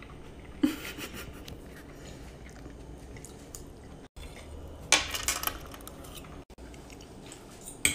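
Metal cutlery clinking and scraping against a plate while people eat. There is a sharp click about a second in and a louder cluster of scrapes and clinks about five seconds in, over a faint room hiss.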